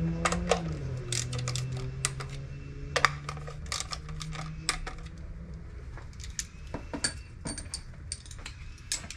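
Irregular sharp metallic clicks and clinks of hand tools and metal engine parts being handled, over a low hum that fades out about halfway through.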